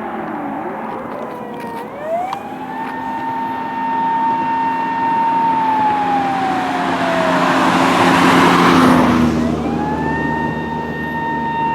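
Emergency vehicle siren wailing: its pitch climbs, holds high, slides slowly down and climbs again near the end. About two-thirds of the way through, the rush of a passing vehicle swells to become the loudest sound.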